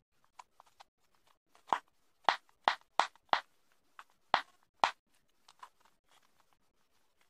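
Balloon bubbles of a homemade EVA-foam pop-it being pressed by fingers, giving a string of short sharp pops at an uneven pace. The loudest come in a quick run of about seven in the middle, with fainter ones before and after.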